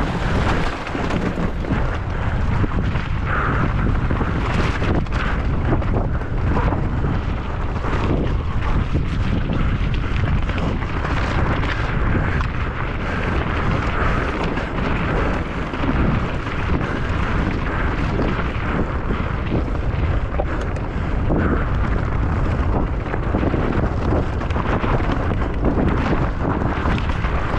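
Wind buffeting the microphone of a camera riding on a mountain bike at racing speed, with a constant clatter and knocking of the bike over rough ground.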